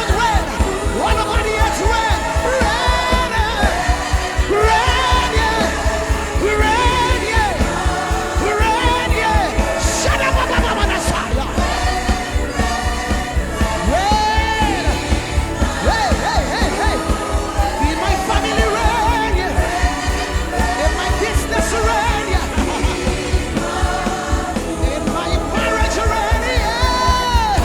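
African gospel worship song: singing over a fast, steady drum beat.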